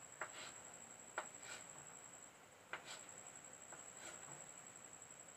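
Near silence: room tone with a faint steady high-pitched whine and three faint taps of a pen or marker while a structure is being drawn.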